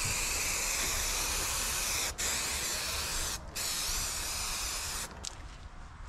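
Adhesive being sprayed in long hissing passes, with two short breaks, stopping about five seconds in; a few light ticks follow.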